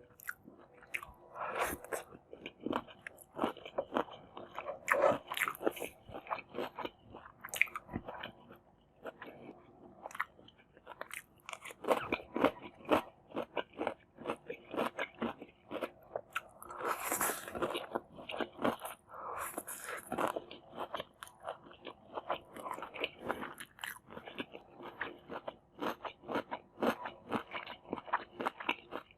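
Close-miked biting and chewing of a meal of masala instant noodles with egg, tomato and cucumber, with many crunchy bites in an irregular run of clicks and crackles. A louder, hissier burst comes about two-thirds of the way through.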